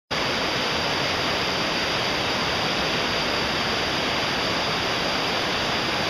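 Fast mountain river rushing steadily over rocks and small rapids.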